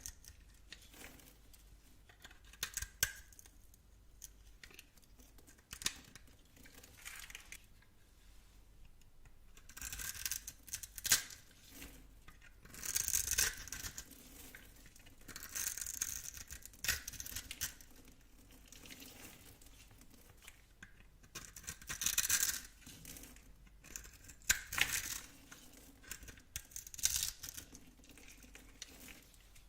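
A blade cutting through bar soap: a series of crisp scraping strokes at irregular intervals, a few of them drawn out to about a second.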